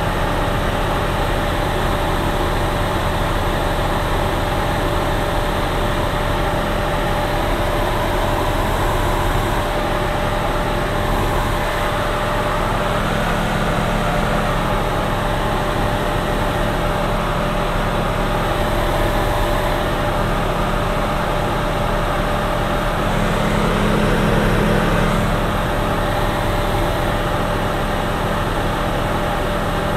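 Steady drone of a single-engine light aircraft's engine and propeller in cruise descent, heard from inside the cockpit, with a constant whine over it. It swells slightly about three-quarters of the way through.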